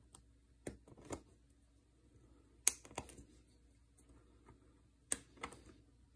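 Faint, scattered clicks and short scrapes of a thin welding torch tip cleaner being worked through a passage in a plastic Briggs & Stratton carburetor part to clear dirt from it. There are about half a dozen in all, the sharpest about two and a half seconds in.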